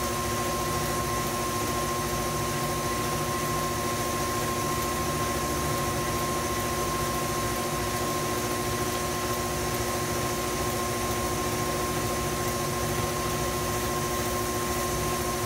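Electric stand mixer running steadily, beating pound cake batter: a constant motor whine over a steady hum.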